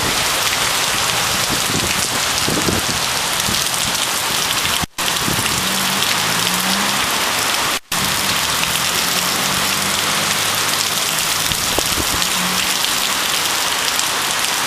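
Heavy rain pouring down steadily in a dense, even hiss, cutting out briefly twice midway.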